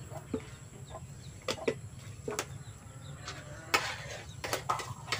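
A metal spoon clinking in a tin milk can as the milk is scraped out, then a spatula scraping and knocking in a wok while stirring. It comes as a scatter of short clicks and knocks, more of them near the end.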